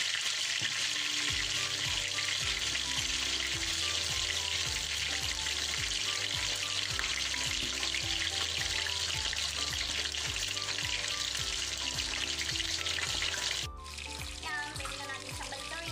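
Whole tilapia frying in hot oil in a pan: a steady sizzle, which drops suddenly and turns quieter near the end. Background music with a steady bass beat comes in about a second in.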